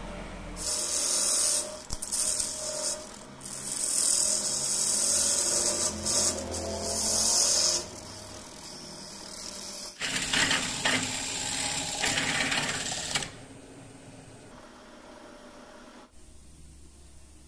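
A turning tool cutting the foot of a mastic-wood goblet spinning on a wood lathe: a loud hissing scrape in several passes, the longest about four seconds, stopping about 13 seconds in.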